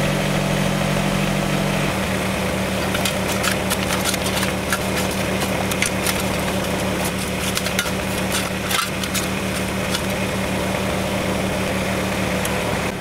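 Kubota BX compact tractor's diesel engine idling steadily, its low note changing about two seconds in. Over it, a steel shovel scrapes and crunches into gravelly soil, a run of sharp strikes from about three to nine seconds in.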